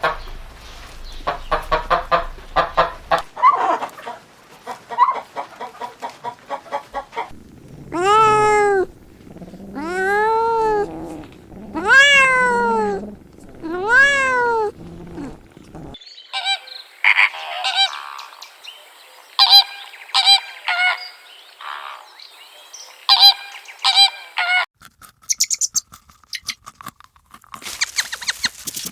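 Farm animals calling across several spliced clips: first a rapid run of short calls, then four long calls that rise and fall in pitch about two seconds apart, then a string of quicker, higher-pitched calls.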